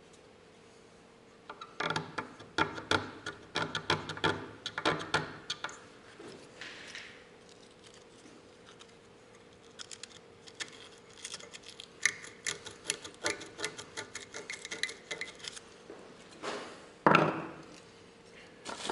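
Sandpaper scraping on the contacts of a disassembled electric car horn, in quick short strokes in two bouts of several seconds each. There is a louder knock near the end.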